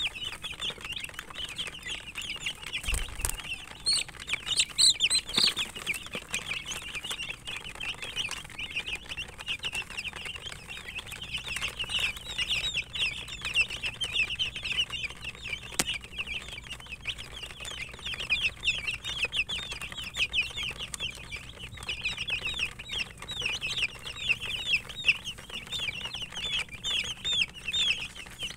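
Many baby chicks peeping continuously, a dense overlap of short, high, downward-sliding cheeps, with a few louder, shriller peeps about four to five seconds in. A brief low thump about three seconds in.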